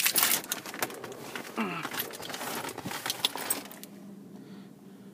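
Keys jangling and rattling, with a quick run of metallic clinks mixed with handling rustle that settles down after about three and a half seconds.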